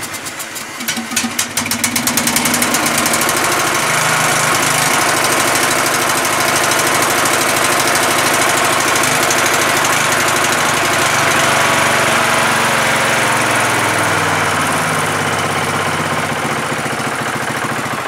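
Briggs & Stratton 17.5 hp lawn tractor engine starting on a little choke: it fires unevenly for the first couple of seconds, then settles into a loud, steady run. It starts and runs fine with the fuel solenoid removed, which the owner takes as a sign that the sticking fuel solenoid was the cause of the no-start.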